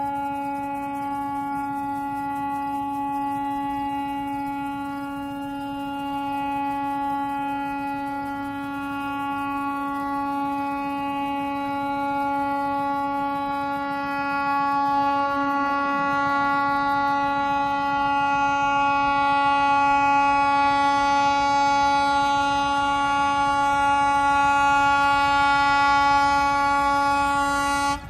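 Horn of an Alco WDM-3A diesel locomotive sounding one long, unbroken blast on a steady pitch as the train approaches, its upper tones growing stronger over the second half before it stops abruptly.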